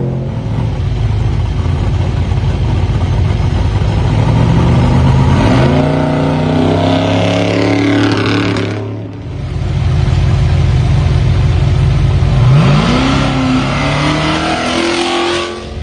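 Off-road race trucks' engines revving hard as they launch from the start line, twice, each a steep climb in pitch that stays high as the truck pulls away. A low engine rumble runs before and between the launches.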